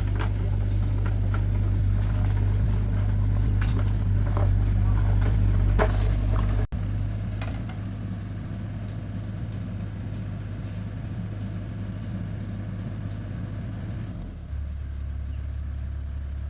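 Excavator's diesel engine running steadily, with scattered metallic knocks and clanks in the first half; the sound changes abruptly twice, about seven and fourteen seconds in.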